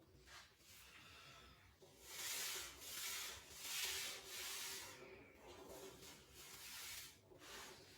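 A series of soft brushing sounds, about five short strokes in quick succession in the middle, then fainter ones.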